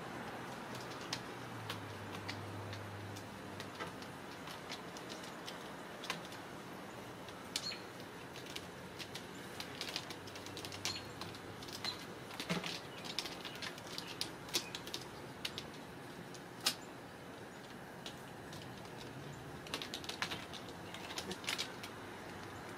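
Ragdoll kittens' claws clicking and scrabbling on a wooden cat climbing frame and scratching post: irregular light clicks and scratches, sparse at first, thickest in the middle and again near the end, over steady background noise.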